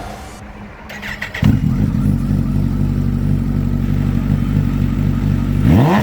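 Sport motorcycle engine starting up about a second and a half in, then idling steadily, and revved once near the end.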